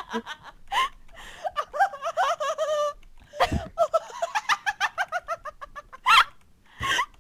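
A woman's uncontrollable high-pitched laughing fit: long runs of rapid 'ha-ha-ha' pulses, about seven a second, broken by sharp gasping in-breaths.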